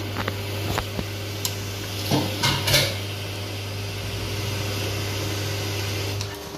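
A ladle and gloved hand stirring thick marinade in a stainless steel pot, with a few knocks and clinks of the ladle against the pot, loudest two to three seconds in. Under it runs a steady low hum that cuts off near the end.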